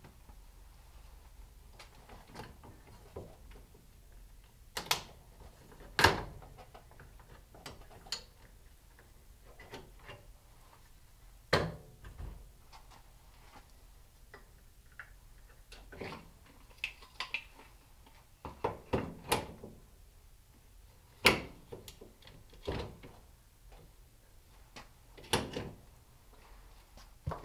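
Irregular clicks, knocks and clunks of an AR-15 being handled in a bench vise as the upper receiver is taken off and the rifle turned upside down, along with a tool-chest drawer being worked. A handful of sharper knocks stand out from the lighter clicking.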